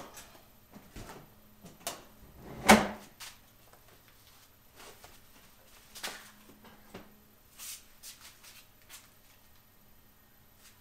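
Door and latch of a sheet-metal oven being opened, then a bicycle frame lifted off its hooks: a series of metallic clicks and knocks, the loudest about three seconds in.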